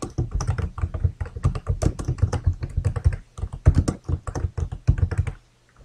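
Fast typing on a computer keyboard, a quick run of key clicks that stops shortly before the end.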